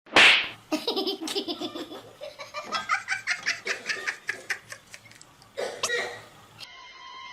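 A person laughing hard in quick rhythmic bursts, opening with a loud shriek-like outburst and breaking out again about six seconds in.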